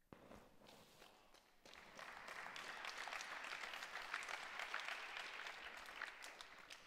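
Faint audience applause: a few scattered claps, swelling about two seconds in into steady clapping that dies away near the end.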